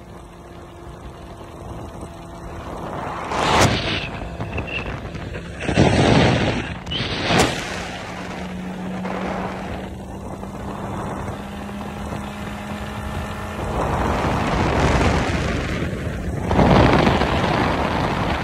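Motorcycle riding at speed, its engine a steady hum that rises slightly in pitch midway, under wind buffeting the phone's microphone in loud gusts, strongest several times in the first half and again near the end.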